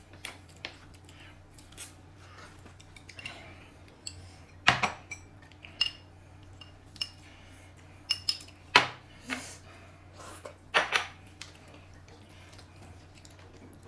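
Tableware clinking: utensils knocking against bowls and dishes in a series of irregular clinks and knocks, the loudest about 5, 9 and 11 seconds in.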